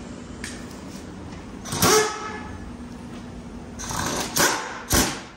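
Impact wrench at a truck's front wheel, run in a few short bursts over a steady low hum. The loudest burst, about two seconds in, has a rising whine; the others, near the end, are sharp and sudden.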